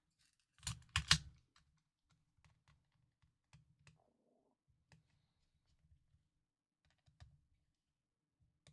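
A few sharp clicks of small hard objects being handled and set down on a work surface, three close together about a second in, then faint scattered taps and one more click near the end.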